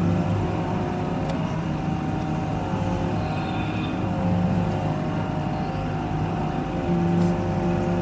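Hydraulic excavator's diesel engine and hydraulic pump running steadily, heard from inside the cab as the boom lifts a full bucket of snow, with a steady hum and a slight rise near the end.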